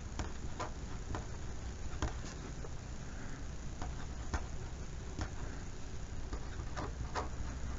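Pen writing on a paper worksheet lying on a desk: faint, irregular ticks and scratches of the pen tip, over a steady low hum.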